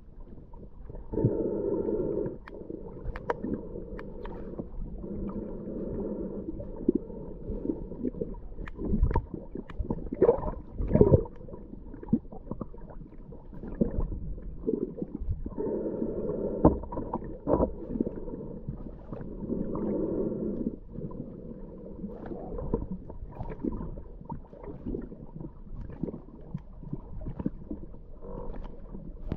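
Underwater sound heard through a camera's waterproof housing: a continuous low rumble with scattered knocks and clicks, and a low droning hum that comes and goes, once near the start and again for several seconds past the middle.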